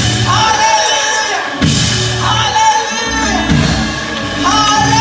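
A woman singing gospel praise into a microphone over live church band music, with sung phrases that rise and hold over low sustained bass notes.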